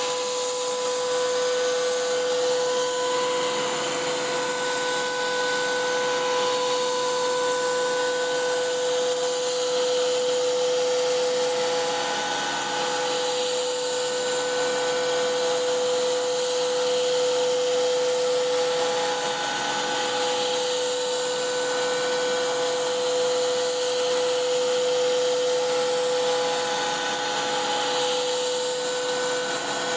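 CNC router's 11 hp Hiteco spindle turning a three-flute bit at 10,000 rpm, adaptive-milling a pocket: a steady cutting whine with a strong tone at the bit's tooth-passing pitch, and higher tones that come and go as the toolpath changes direction.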